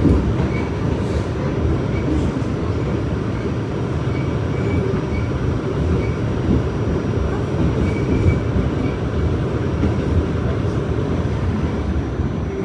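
R46 subway train running along the track between stations: a steady, unbroken rolling noise of wheels and motors, heaviest at the low end, with a few faint short high squeaks.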